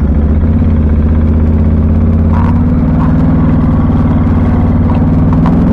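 Vehicle engine running steadily with a low, even hum that rises slightly in pitch partway through.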